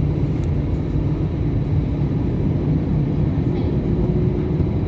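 Airbus A320-214's CFM56 jet engines at high power as the jet begins its takeoff roll, heard from inside the cabin: a steady deep rumble with a faint high whine.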